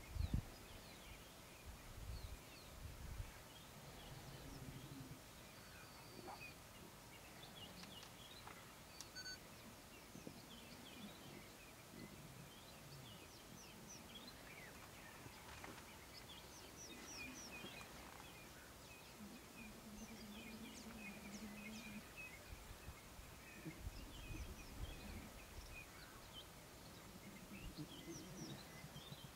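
Faint bush ambience with small birds chirping on and off, a few low thumps near the start and again later, and a short low hum about two-thirds of the way through.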